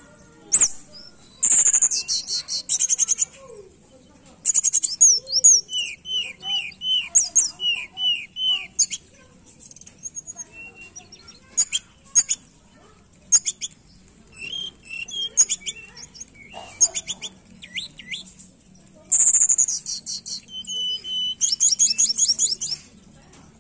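Caged tledekan gunung singing: bursts of high, fast trills and series of rising whistled notes in repeated phrases, with single chips scattered between them.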